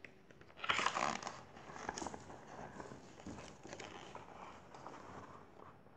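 Paper rustling as a page of a hardcover picture book is turned and the book is handled, loudest about a second in, then fainter rustles.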